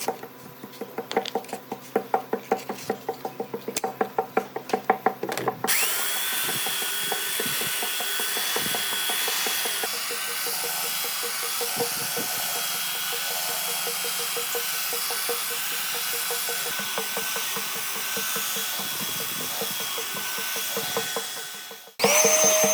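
A rapid series of knocks on wood, then about six seconds in a handheld power tool starts with a quickly rising whine and runs steadily on the wood. It cuts off abruptly near the end.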